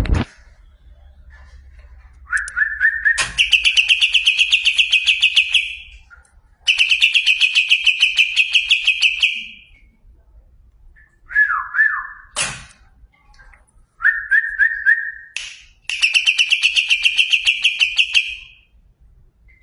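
Cucak ijo (green leafbird) singing: four long bursts of rapid, chattering repeated notes, each opened by a short, lower whistled phrase. There is a sharp click about halfway through.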